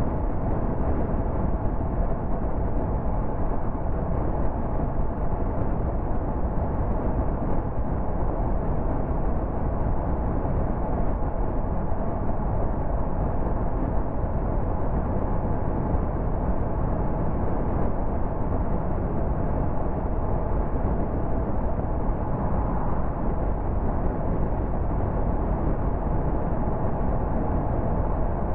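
Steady road noise of a car cruising at motorway speed: an even rumble of tyres and wind, with a faint steady hum running under it.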